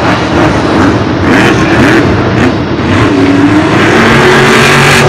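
Max-D monster truck's supercharged V8 engine revving up and down repeatedly, then holding steady revs near the end.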